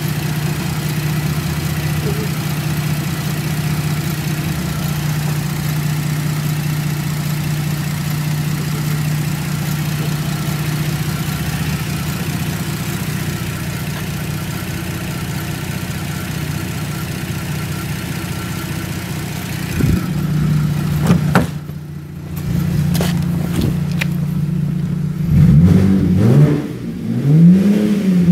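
Holden Commodore's engine idling steadily for about twenty seconds, then revved in several short blips near the end, its pitch rising and falling with each one.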